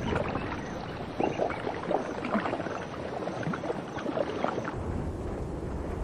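Water splashing and churning with scattered droplet plops as a diving bird strikes the surface. About four and a half seconds in, it gives way to a duller, steady rush.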